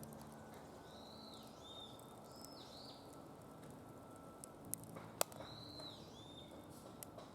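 Wood fire burning in a fire pit, with a few sharp crackling pops about five seconds in, over a series of short high chirping whistles.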